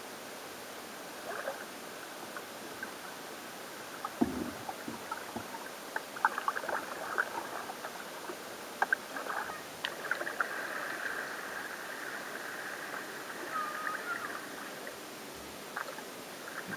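Kayak paddle strokes: the blades dip and splash, with water dripping and trickling in scattered small splashes. A low thump about four seconds in, and a busier stretch of splashing and trickling about ten to fifteen seconds in.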